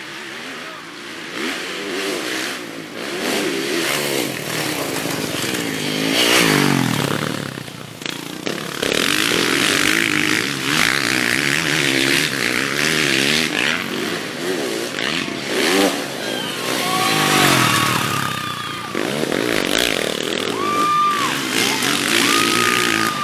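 Motocross dirt bikes racing, engines revving up and down through the gears, growing louder as the bikes approach.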